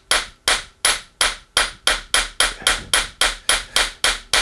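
Steady hammer blows on a steel forming die held in a vise, each a sharp metal-on-metal strike with a short ring, about three a second and coming a little faster toward the end. The blows are driving an aluminium rivet blank into the die's pocket to form the rivet head.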